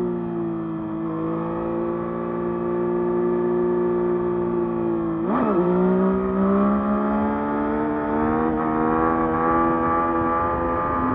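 Yamaha MT-09 SP's 890 cc inline-three engine running under way on its stock exhaust, holding steady revs. About five seconds in, the pitch dips sharply and comes straight back, then runs on at higher revs and slowly climbs.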